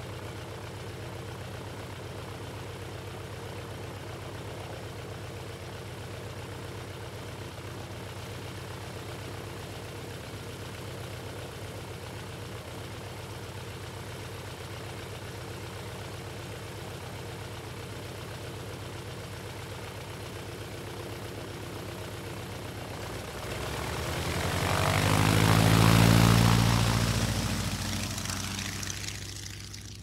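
Propeller airplane engine idling steadily, then opening up to take-off power near the end: the sound swells to a loud peak as the plane passes and fades as it moves away.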